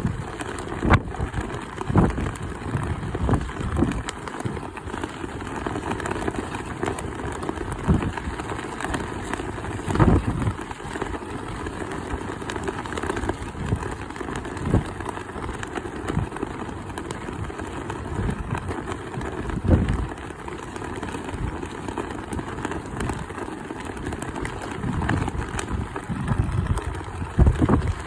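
Strong wind blowing across the microphone: a constant rushing noise with irregular low buffeting gusts every second or two.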